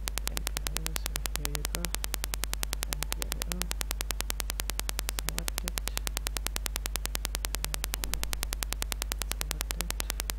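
Electrical hum and a fast, even buzzing from a faulty microphone, steady throughout, with only faint traces of a voice under it.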